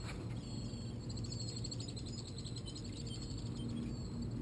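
Birds chirping in quick repeated high notes over a steady low hum.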